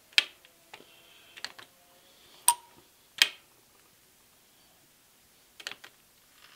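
Sharp metallic clicks and taps from handling the dial indicators and bar of a spindle square tramming gauge as it is recalibrated. There are about half a dozen separate clicks, a few ringing briefly, with the loudest in the first half.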